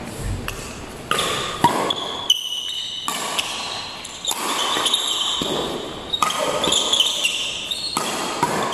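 Badminton doubles rally: sharp racket hits on the shuttlecock and short high squeaks of sneakers on the court floor.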